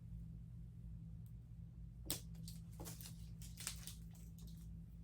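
Protective packing tape being pulled up and peeled off the plastic body of a Silhouette Cameo 4 cutting machine: a run of short crackling rips starting about two seconds in, over a low steady hum.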